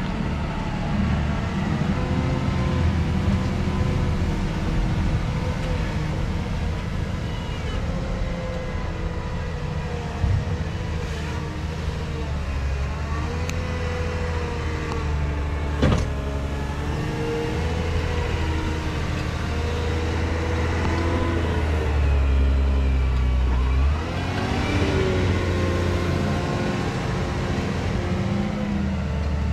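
JCB 435S wheel loader's diesel engine working a maize silage pit, its revs rising and falling over and over as it pushes and lifts the silage with a buckrake. Two short sharp knocks sound about ten seconds in and about sixteen seconds in, the second louder.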